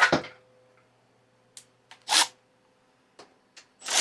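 A few brief clicks and scrapes of hand-tool handling, with two louder ones at the start and about halfway through and faint ticks between.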